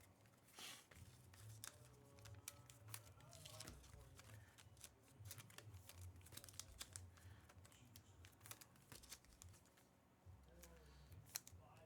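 Faint handling of trading cards: irregular soft clicks and brief rustles as cards are picked up, slid and set down.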